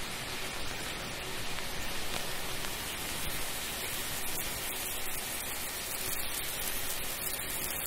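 Steady hiss of shower water spraying and pattering.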